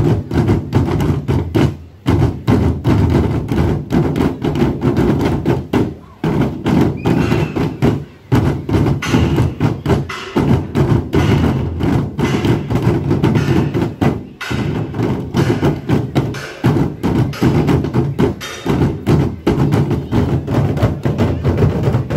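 A large Sri Lankan rabana (frame drum) laid flat and beaten by several players' hands at once in a fast, continuous rhythm, broken by a few brief pauses.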